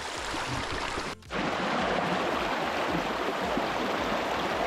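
Steady rush of creek water. It cuts out briefly about a second in and comes back slightly louder.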